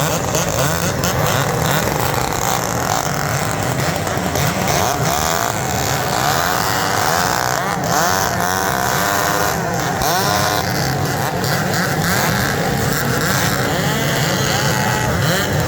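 Two-stroke chainsaw engines running hard at high revs, their pitch sweeping up and down in the middle stretch.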